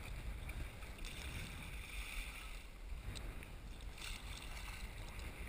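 Choppy water lapping and splashing against a kayak, with wind rumbling on the microphone.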